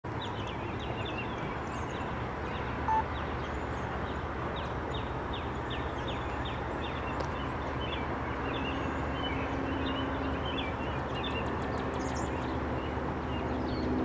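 Songbirds chirping over a steady low background rumble, with a short beep about three seconds in. A faint steady hum of several tones comes in after about eight seconds.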